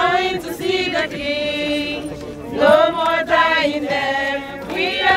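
A group of men and women singing a hymn together in long, held notes.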